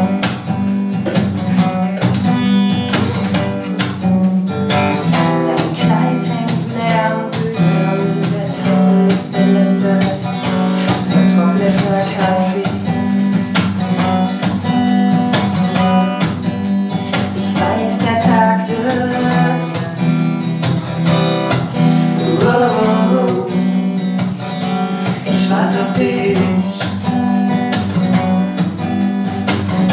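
Acoustic guitar strummed in steady chords, accompanying a song.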